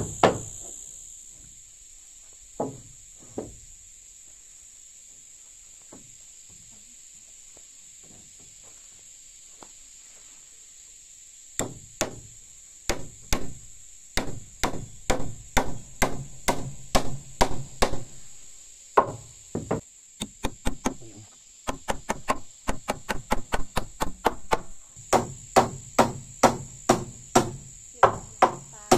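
Claw hammer driving nails into wooden floorboards: runs of quick, sharp blows, about two or three a second. The first ten seconds or so hold only a couple of knocks, then steady hammering starts, with a short pause about two-thirds of the way through.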